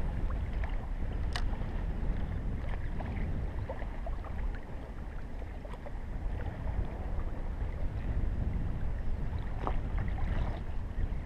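Wind buffeting the microphone in a steady low rumble, with choppy water lapping and splashing close by in scattered small slaps.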